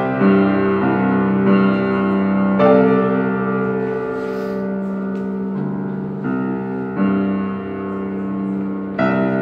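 Yamaha upright piano played slowly: notes and chords struck every second or two and left to ring into one another.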